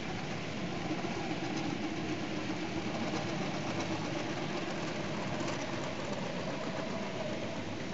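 Two model freight trains passing each other on a model railroad layout, making a steady rolling rumble of wheels on the track.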